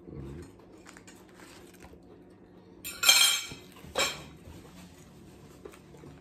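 Eating noises at a breakfast table: dishes and cutlery knocking and clinking. There is a loud crackling burst about three seconds in and a shorter one a second later.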